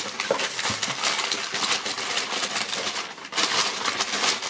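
White plastic packaging bag crinkling and rustling as it is handled and pulled open, a dense crackle with a short lull about three seconds in.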